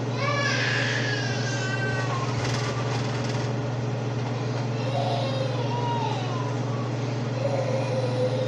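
Steady low hum over the stove, with a small child's high, wavering whimpering cries that rise and fall near the start and again in the second half. There is a short clatter in the middle.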